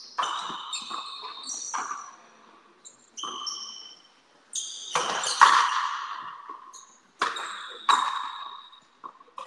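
Frontenis rally: the rubber ball being struck by rackets and smacking off the fronton wall and floor in a string of sharp, irregular hits, each ringing on with a high ping and echo.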